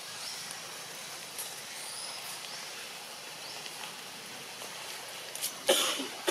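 Outdoor forest ambience: a steady hiss with faint, short high chirps scattered through it, then a sudden loud sharp noise near the end.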